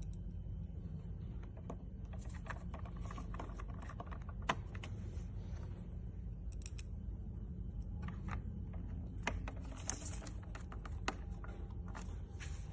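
Scattered small clicks and ticks of a hand screwdriver turning small screws into a plastic dashboard fascia part, with the part being handled, over a steady low background rumble.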